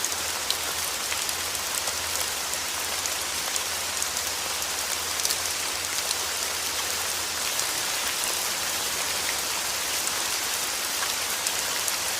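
Steady rain falling on surfaces, an even hiss with scattered sharper drop ticks.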